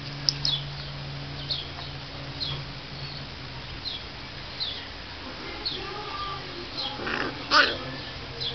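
Puppies squeaking and yipping as they play: short, high-pitched falling squeaks about once or twice a second, with a louder burst of yelps near the end.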